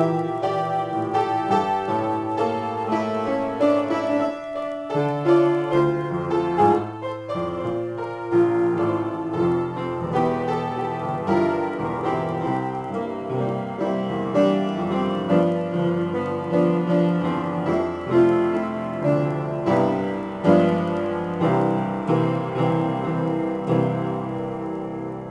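Upright piano played as a free improvisation, a dense flow of notes and chords with sharp note attacks. Near the end the playing thins and the sound fades as the last notes ring out.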